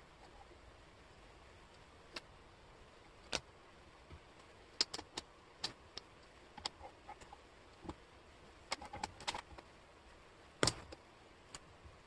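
Wooden jigsaw puzzle pieces clicking and tapping against the tabletop and against each other as they are picked up and set down. The clicks come sharp and irregular, in small clusters, with the loudest near the end.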